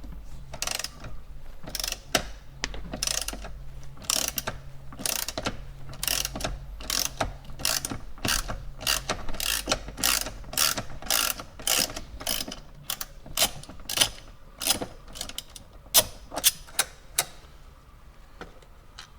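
Ratchet wrench with a T45 Torx bit loosening the seatbelt adjuster bolt: repeated ratcheting strokes, about one to two a second, which stop shortly before the end.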